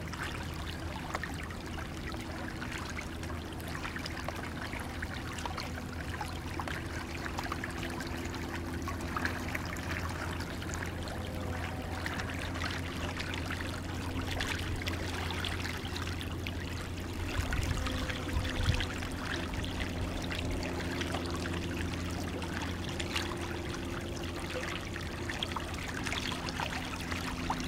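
Creek water running and trickling past an edge of ice, a steady bubbling wash with a faint low hum underneath. A few low bumps come about two-thirds of the way through.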